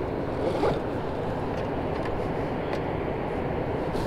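Steady rushing noise of wind and water around a small boat on open water, with a short bump just over half a second in.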